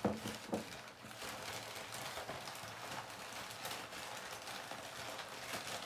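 Crinkling and rustling of packing paper, with a couple of light knocks at the start, as wrapped decorations are unwrapped and handled.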